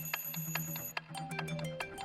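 Music built on a clock-like ticking beat, about five ticks a second, over a low steady drone. About halfway through a high steady tone drops out and short plinking notes come in.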